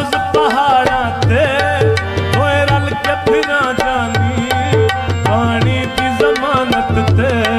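Live Punjabi folk music without words: hand drums keep a driving rhythm of deep and sharp strokes under a melody of sliding, wavering notes over steady held tones.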